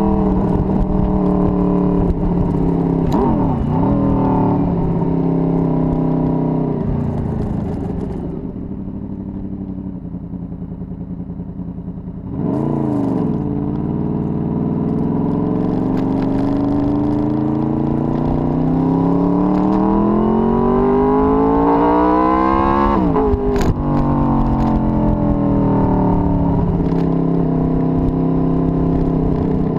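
Honda VFR800's V4 engine under way: it runs steady, with quick dips and rises in pitch during gear changes, then eases off to a lower, quieter note for a few seconds. From a little under halfway in it accelerates, its pitch climbing steadily for about ten seconds until a gear change drops it sharply, and then it pulls on.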